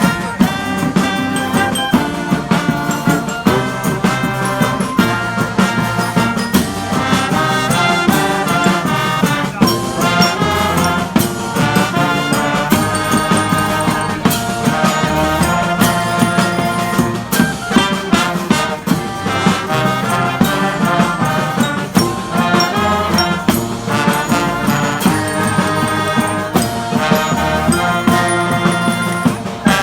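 Brass street band playing a tune: horns carrying the melody over drums with a steady beat.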